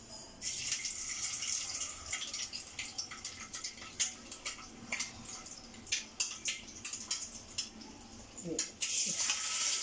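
Hot oil with bay leaves sizzling in an iron kadhai, a steady hiss with many sharp crackles and pops through it, growing louder near the end.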